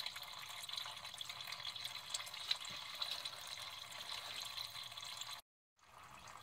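Automatic transmission fluid pouring from the drain hole of a 1997 Honda Civic's transaxle into a plastic drain pan, a steady splashing stream. The sound cuts out briefly about five seconds in, then comes back a little quieter as a thin stream of antifreeze trickling from the radiator into a second pan.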